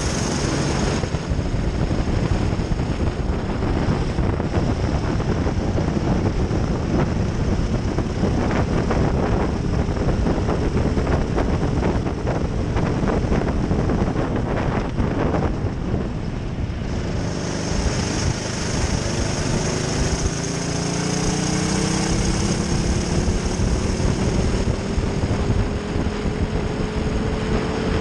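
Racing kart's engine heard onboard, running hard around the circuit with heavy rushing noise. About two-thirds of the way in, its note climbs steadily as the kart accelerates.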